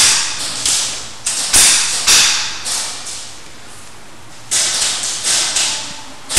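Airsoft gunfire: about a dozen separate sharp shots at irregular intervals, each trailing off in a hissy echo. There is a lull of about a second and a half in the middle, then a quicker run of shots.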